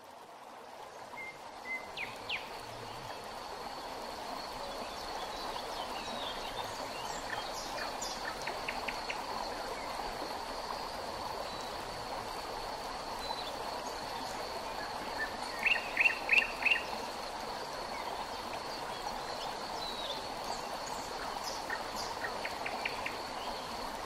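Steady flow of a river, fading in at the start, with birds chirping now and then, the loudest a quick run of four chirps about two-thirds of the way through, over a continuous high-pitched insect trill.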